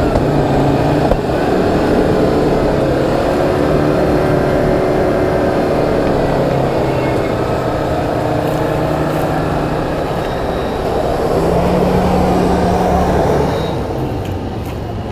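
An off-road SUV's engine revving hard, its pitch wavering up and down, then easing off near the end.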